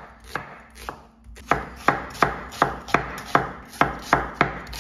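Chef's knife slicing a red onion thinly on a wooden cutting board, each cut ending in a sharp knock of the blade on the board. A few spaced cuts come first, then a steady run of about two or three a second from a second and a half in.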